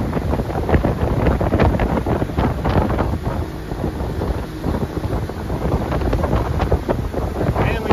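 Sea-Doo Switch pontoon boat under way: wind buffeting the microphone in irregular gusts over water rushing past the hull, with the engine itself running quietly.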